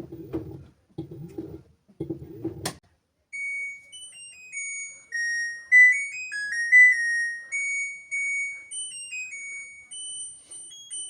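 LG washing machine playing its end-of-cycle melody, a short tune of clear electronic beeps, which signals that the wash is finished. It starts about three seconds in, after three low rumbling pulses about a second apart and a sharp click.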